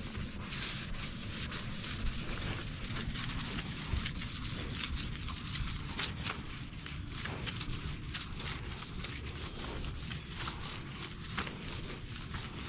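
Hand scraper scraping softened letter-glue residue off the flat side panel of a box truck, in a run of short, irregular scrapes.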